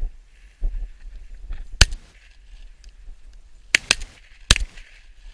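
Shotgun shots fired at a flushed bird: one report about two seconds in, two more close together near four seconds, and a last one half a second later.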